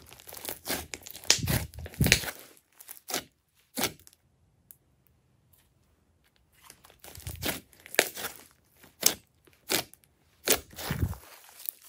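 Hands squishing and folding glossy slime: quick runs of sticky crackling squishes, with a pause of about two seconds in the middle.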